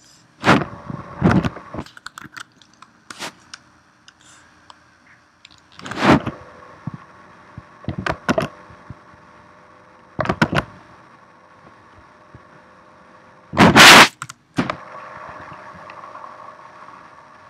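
Irregular sharp knocks and clicks, about ten of them, loud and sudden, with the loudest, slightly longer thump about 14 seconds in, over a faint steady hum.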